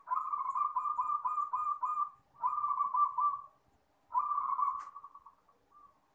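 Zebra dove (perkutut) singing: three phrases of rapid, rolling coos, the first about two seconds long and the others shorter, with brief pauses between. A soft single coo follows near the end.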